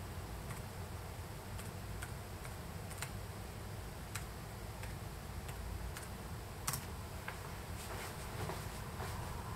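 Keystrokes on an HP laptop keyboard: a dozen or so irregular, separate key clicks, one louder than the rest about two-thirds of the way through, over a steady low hum.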